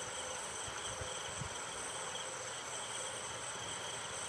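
Insects chirring steadily at a high pitch in a pulsing trill, with faint rustling as copper wire ends are twisted together by hand.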